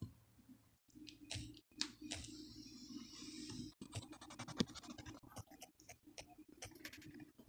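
Faint scratching and tapping of a paintbrush working paint on a palette and stroking it onto a surface, over a low steady hum. It is broken by a few abrupt cut-offs.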